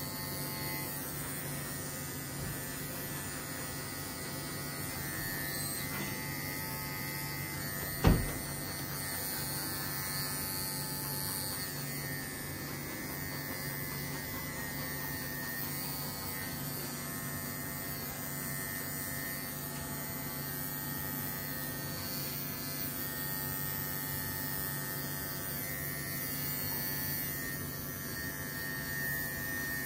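Cordless electric dog clippers running with a steady buzz as they trim a Scottish terrier's coat. One sharp knock about eight seconds in.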